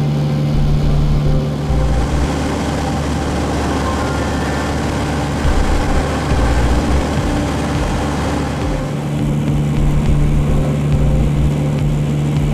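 Piper PA-28 Archer's four-cylinder Lycoming engine and propeller droning steadily in flight, heard inside the cabin, with rushing air noise that is strongest through the middle.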